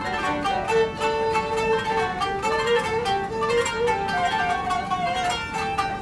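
Turkish kanun (plucked zither) playing quick runs of plucked notes, with a violin carrying a held, sliding melody over it.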